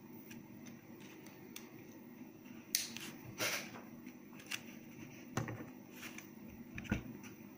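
Pliers gripping and bending thin 0.6 mm stainless-steel wire: about five small, sharp metallic clicks, one of them a short scrape.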